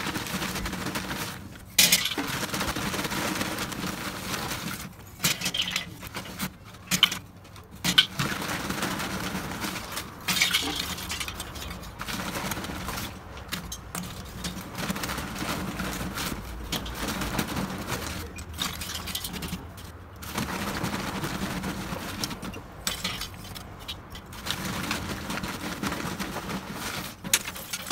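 Pieces of charcoal clinking and clattering as they are dropped by hand into a metal charcoal dome on a kettle grill's grate, in irregular bursts with a few louder knocks.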